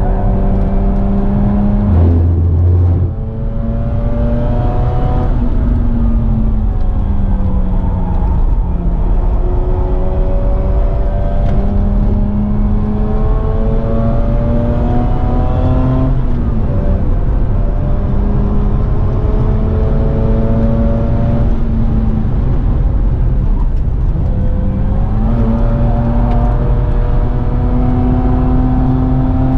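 Mazda RX-8's twin-rotor Wankel rotary engine, heard from inside the cabin while driven hard, its pitch climbing and dropping back several times over loud road and tyre noise. A short deep buzz comes about two seconds in.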